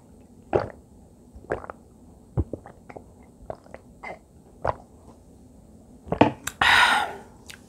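A person swallowing water in gulps, one about every second, picked up close by a clip-on microphone, then a loud breathy exhale near the end.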